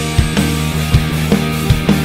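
Background rock music with a steady drum beat and sustained bass and chords.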